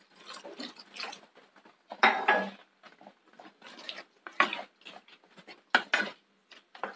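Water poured into a pan of thick chicken curry gravy at the start, then a wooden spatula stirring the curry and scraping and knocking against a non-stick pan in uneven strokes.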